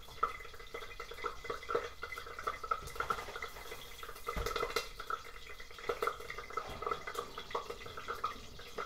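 Hot cooking oil popping and crackling in a pan as it heats, a steady scatter of short irregular pops.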